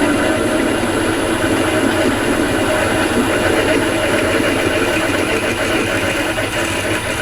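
Myford Super 7B lathe running steadily with a twist drill cutting into the workpiece in the chuck, a steady mechanical hum with a constant high whine.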